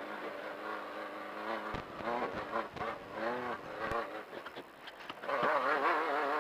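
Off-road race car engine running, heard from inside the car, its pitch rising and falling with the throttle and wobbling over rough ground, with a few low thumps from the chassis. It gets louder near the end.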